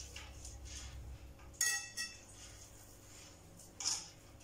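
A metal tablespoon clinks against a ceramic mixing bowl about a second and a half in, with a lighter knock just after. Near the end comes a brief soft squish of hands rolling raw mince into a ball.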